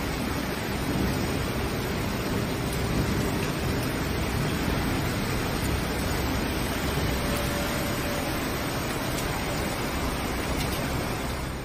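Floodwater rushing in a torrent down a flooded street, a steady wash of water noise that cuts off suddenly near the end.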